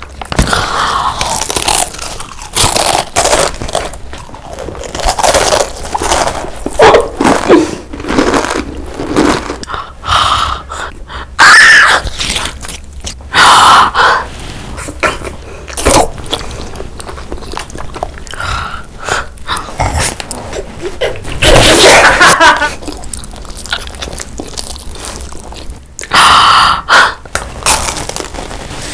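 Close-miked eating: crunchy bites of Takis rolled tortilla chips and other snacks, then chewing, as a string of separate loud bites through the whole stretch, with a few short gasps.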